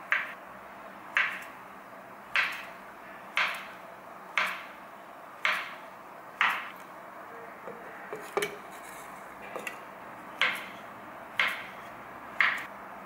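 Kitchen knife slicing through a peeled banana and knocking on a wooden cutting board, one sharp chop about every second, with a few lighter clicks around the middle.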